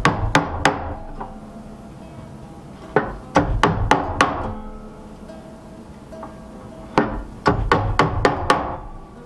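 Claw hammer driving hand-forged nails into a wooden chest, in three bursts of quick blows a few seconds apart.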